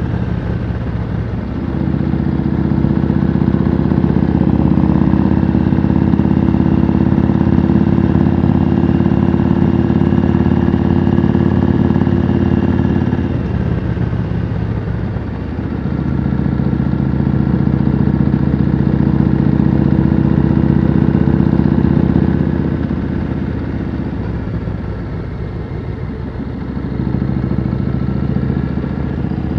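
Yamaha Road Star V-twin cruiser with loud pipes running at a steady pace under throttle. The engine note falls back twice, about halfway through and again a few seconds before the end, as the throttle is eased, then picks up again.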